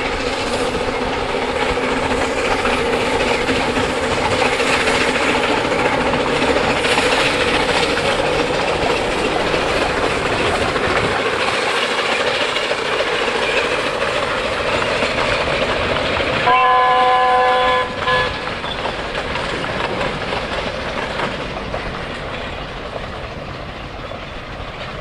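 A train of loaded coal wagons rolls past behind a C2 narrow-gauge steam locomotive, with a steady rumble and clatter of wheels on rail that fades toward the end. About two-thirds of the way through, the locomotive's steam whistle sounds once for about a second and a half, with a brief second blast just after.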